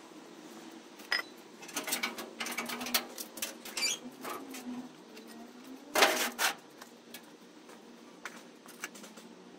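Scrap metal clattering and clanking as pieces are handled, with one loud clank about six seconds in.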